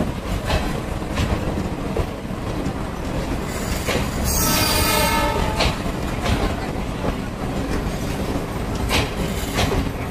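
Passenger coaches of a departing express train rolling past: a steady rumble with wheels clacking over the rail joints, and a metallic wheel squeal lasting about two seconds near the middle.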